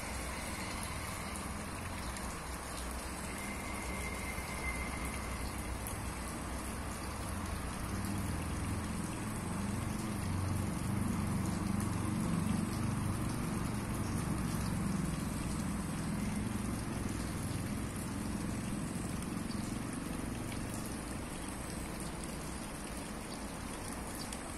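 Steady road traffic noise from the toll road, with a low rumble that swells for several seconds in the middle and fades again, as a vehicle passes.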